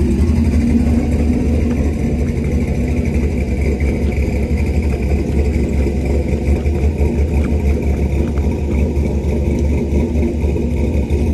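Semi-truck diesel engine idling steadily, a constant low-pitched drone.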